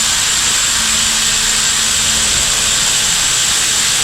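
Loud, steady hiss of a pressurized air jet, such as a compressed-air blow gun or aerosol spray, with a faint thin whistle over it, held unbroken for several seconds.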